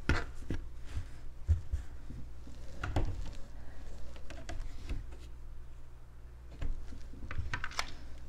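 Cotton t-shirt being turned over and smoothed by hand on a plastic rotary cutting mat: soft handling noises with scattered light knocks and taps. A clear acrylic quilting ruler is laid down on it near the end, with a few quick taps, over a faint low hum.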